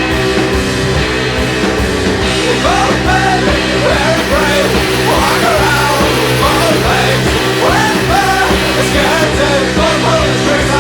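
Rock music track with a driving beat and held chords; a bending melody line comes in about two and a half seconds in.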